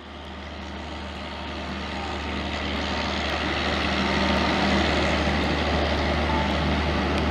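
Steady low mechanical drone with a hum from the Rajdhani Express train at the platform, swelling louder over the first few seconds and then holding level.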